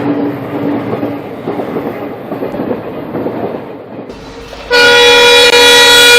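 A train running with a steady rumble and clatter of wheels on rails. Then, after a cut, a loud locomotive horn blares suddenly about four and a half seconds in and holds as a steady multi-tone blast.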